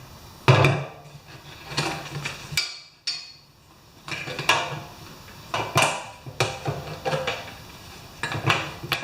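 Irregular metallic clinks and knocks of tools and metal parts being handled on a workbench.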